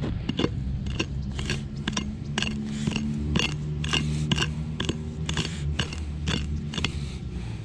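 A digging tool biting and scraping into hard, gritty soil in quick repeated strokes, about three a second, over a steady low rumble.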